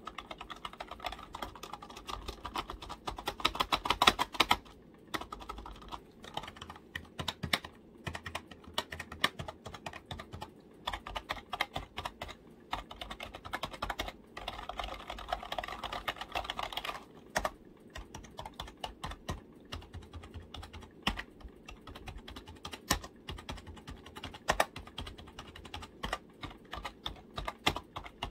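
Fingers tapping and typing on a computer keyboard: a steady, uneven patter of key clicks, with quicker, denser flurries about three to five seconds in and again around fourteen to seventeen seconds in.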